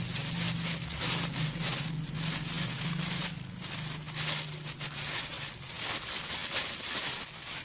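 Thin plastic bags crinkling and rustling in irregular handfuls as bottles wrapped in them are handled and unwrapped. A low steady hum runs underneath and stops about five seconds in.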